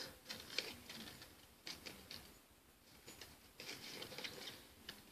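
Faint, scattered rustling and light ticks of trading cards and opened pack wrappers being handled.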